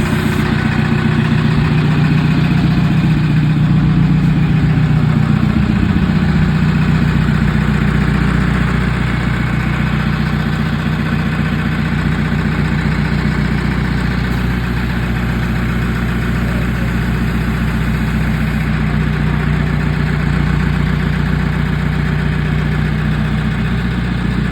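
An engine running steadily and loudly, a little stronger for the first several seconds, then holding an even pitch.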